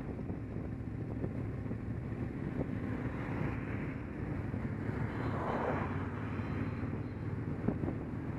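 Motorcycle engine running steadily at cruising speed, heard from the bike itself, with wind on the microphone and a brief rush of noise a little past halfway.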